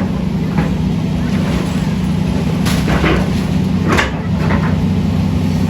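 Diesel engine of heavy demolition machinery running steadily, with a few sharp knocks and bangs of impacts on top, the loudest about four seconds in.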